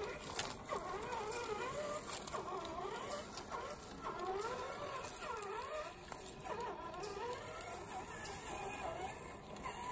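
Electric motor and gear drive of an RC4WD TF2 LWB scale crawler whining, the pitch rising and falling over and over as the throttle is worked on the trail. Scattered clicks and patter from the tyres and chassis sit underneath.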